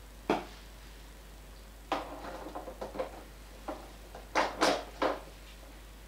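A sharp knock as the tamper is set down, then a run of metal clinks and clunks as the filled portafilter is handled and fitted into the espresso machine's group head, ending in three loud clacks close together.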